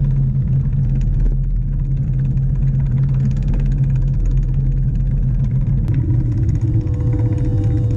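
Background music with a low, rumbling bass drone; about six seconds in it gives way to a passage of long held tones.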